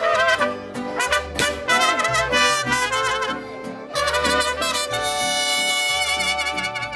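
Mexican regional brass music: trumpets and trombones play an instrumental break between sung verses of a corrido, over a bass line that moves in steady note steps.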